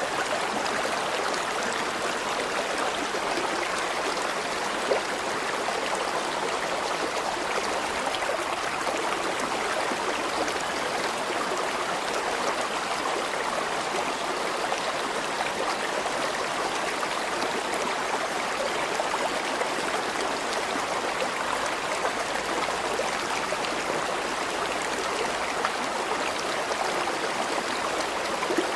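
River water flowing steadily over stones, a continuous rushing and burbling.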